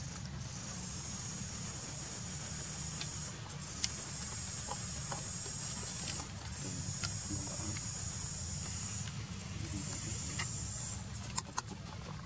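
High-pitched insect buzzing that comes in stretches of two to three seconds with short breaks between them, over a steady low rumble.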